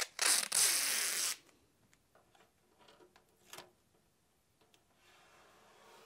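Masking tape pulled off the roll in one loud rip lasting about a second, followed by faint rustling and a single click.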